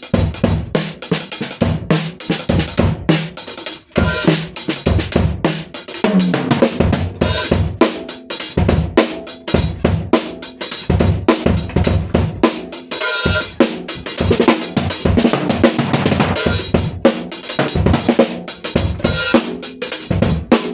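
Drum kit being played: kick drum, snare and cymbals struck in a dense, fast pattern, with a brief break about four seconds in.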